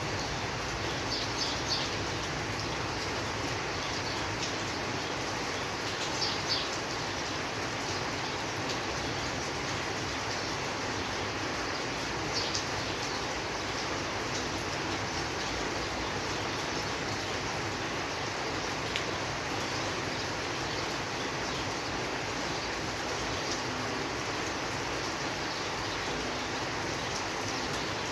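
Steady rain, an even hiss that does not change. A few brief high-pitched sounds stand out above it, about a second and a half in, near six seconds and near twelve seconds.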